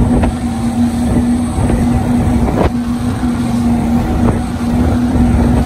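A 47-foot Freeman boat's quad Mercury 450 outboard motors running under way, a steady drone over a dense low rush.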